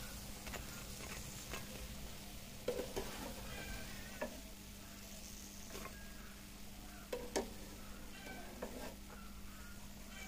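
Pumpkin-flower pakoras frying in hot oil with a faint steady sizzle, broken by a few sharp clicks and knocks of a utensil against the pan.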